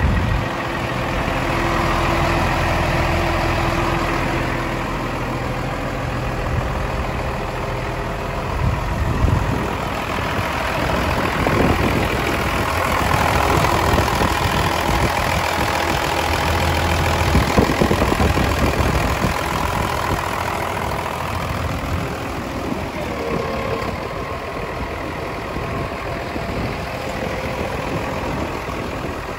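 Kalmar DCD 200-12 LB forklift's turbocharged diesel engine idling steadily.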